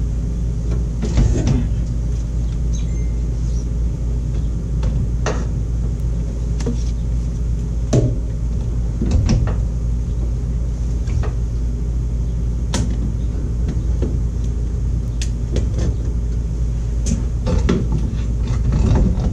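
Irregular clunks and knocks of a new brake booster being worked onto its firewall studs, hard parts knocking together about a dozen times over a steady low hum.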